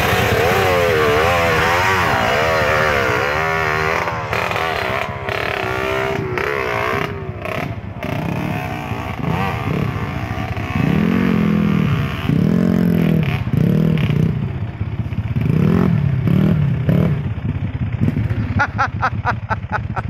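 Trail motorcycle engines revving hard and unevenly under load, their pitch swinging up and down as the bikes climb a steep, rutted dirt track. From about halfway through comes a string of short rev bursts about a second and a half apart.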